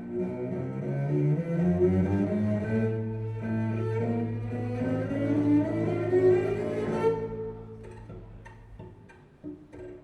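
Recorded music played through Marten hi-fi loudspeakers: bowed low strings, cello or double bass, holding a deep note under a slowly rising melody. The music fades about seven seconds in, leaving a few soft plucked or tapped notes near the end.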